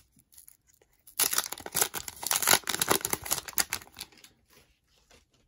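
The foil wrapper of a hockey card pack being torn open and crinkled. It is a dense crackling that starts about a second in and lasts about three seconds.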